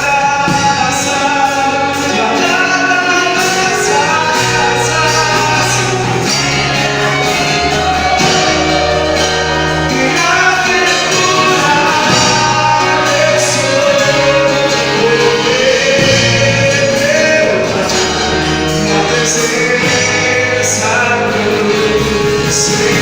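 Live Christian gospel band playing with sung vocals, bass and drums with cymbals, echoing in a large hall.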